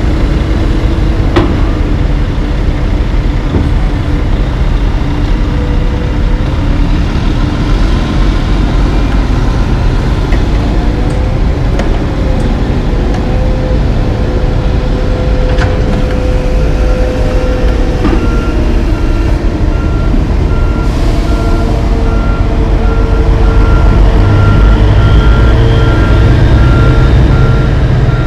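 Heavy diesel dump trucks and an asphalt paver running at a paving site, their engines growing louder near the end. A reversing alarm starts beeping steadily about two-thirds of the way through.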